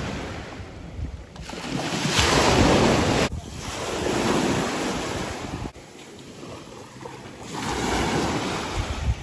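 Wind buffeting the phone's microphone over small waves lapping at the water's edge. The rush swells and fades every couple of seconds, drops off abruptly twice, and is quieter for a stretch before rising again near the end.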